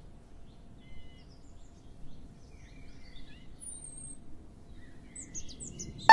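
Birds chirping and twittering over a low steady background rumble, with short whistled notes and chirps growing busier toward the end.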